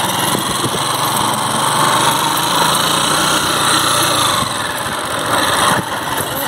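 Small motorcycle engine running steadily as the bike is ridden along, with a constant low drone.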